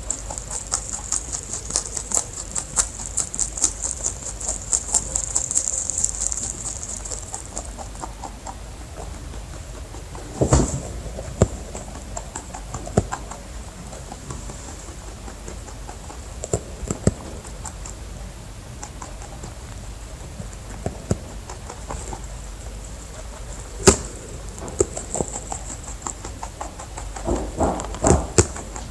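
Rabbits moving about: rapid fine clicking and rustling for the first seven seconds or so, then scattered taps and a few sharp knocks.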